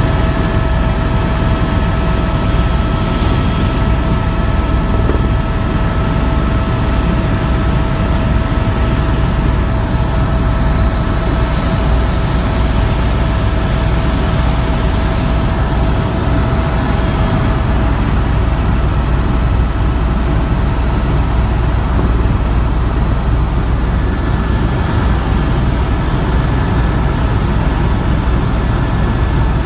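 Tour helicopter in flight heard from inside the cabin: a steady, loud drone of engine and rotor with a thin high whine running through it.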